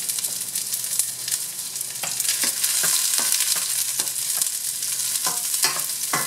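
Chopped garlic sizzling in olive oil in a stainless steel sauté pan, a steady crackling hiss. From about two seconds in, a wooden spoon stirs it and scrapes against the pan.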